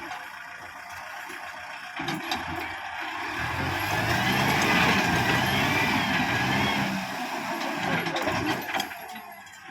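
Kubota MU5501 tractor's diesel engine running, its revs and loudness building from about three seconds in and easing off near the end. A wavering high whine sits over the engine at its loudest.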